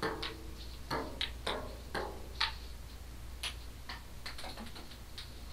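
Table tennis ball bouncing on a tabletop and being hit back and forth in a rally: a string of sharp, irregular clicks.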